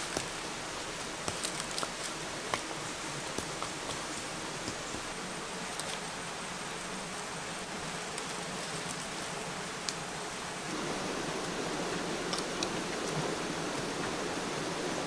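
Steady outdoor hiss with scattered small clicks and rustles of dry leaf litter as hands dig at tree roots. About eleven seconds in it gives way to a louder, fuller hiss with light crackles from a stingray grilling in a leaf wrap over wood embers.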